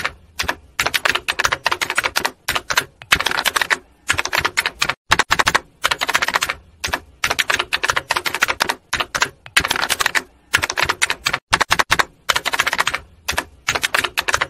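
Typing sound effect: rapid keystroke clicks in bursts of a second or so, separated by short gaps.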